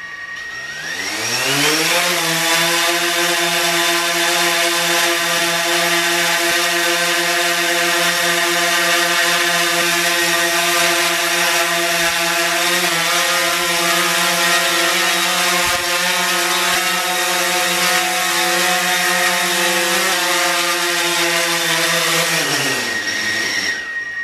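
DJI Phantom 4 Pro quadcopter's four motors and propellers spinning up over about two seconds into a steady pitched whirr, holding that pitch, then winding down near the end.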